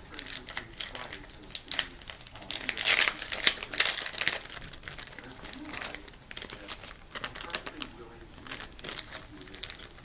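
A white packaging wrapper crinkling and tearing as it is unwrapped by hand, in a quick irregular run of crackles that is loudest about three to four seconds in.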